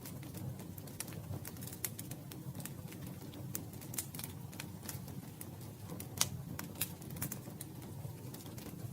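Campfire crackling: irregular sharp snaps and pops over a low, steady rumble of burning wood, a few louder pops standing out.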